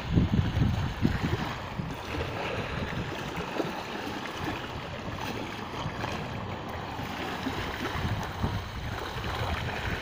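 Wind gusting over the microphone, strongest in the first couple of seconds, with small waves lapping on the shore.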